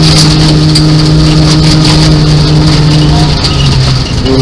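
Nissan Micra 1.0 rally car's engine running hard at a steady high note, heard from inside the cabin, over a constant clatter of gravel against the car. About three seconds in the engine note drops, and it changes pitch again near the end.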